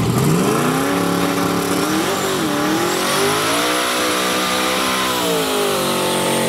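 Twin-turbo small-block Chevy V8 held at high revs during a burnout, the rear tyre spinning in smoke. The revs dip briefly about two seconds in, climb again with a high whistle over the engine, then fall away near the end.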